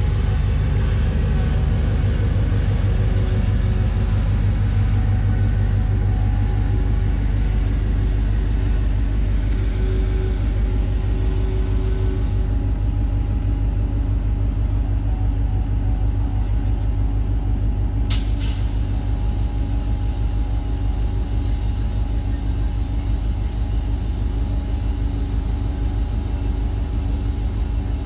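Diesel train engine running with a steady low rumble, heavier for the first twelve seconds or so, then settling. A single sharp click comes about eighteen seconds in.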